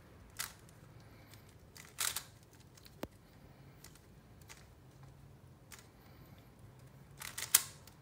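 Plastic 3x3 Rubik's cube having its layers turned by hand: short clicking, scraping turns in scattered bursts, the loudest cluster of quick turns near the end.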